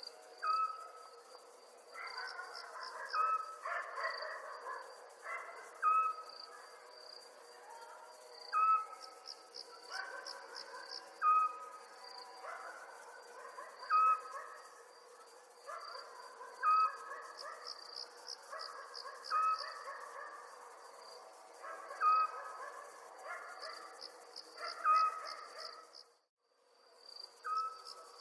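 Night chorus of crickets chirping in steady pulsed trills, with another animal's short call repeating about every two and a half to three seconds over it. All sound cuts out for about half a second near the end.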